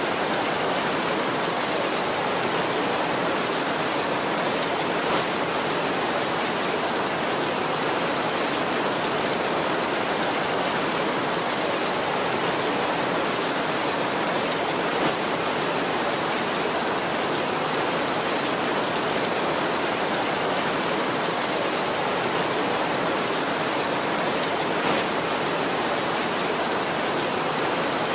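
Steady heavy rain falling, an even hiss with no thunder, and a few slightly louder drop hits, about ten seconds apart.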